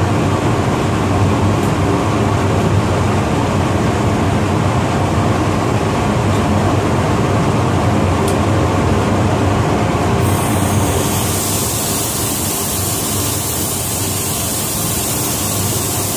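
Paint spray booth's ventilation fans running: a loud, steady rumble with a hum through it. About ten seconds in, a high hiss of air comes in on top.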